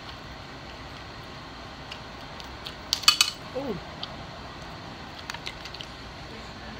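Mussel shells clicking as they are handled and picked apart over a glass dish: scattered sharp clicks, with a quick cluster about three seconds in.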